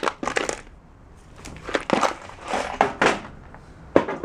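Small objects being rummaged through and handled in a box: several short rustles and clatters.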